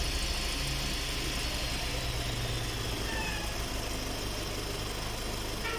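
Volkswagen Fox engine idling steadily while the steering is turned to the right during a check for a steering knock; no distinct knock stands out.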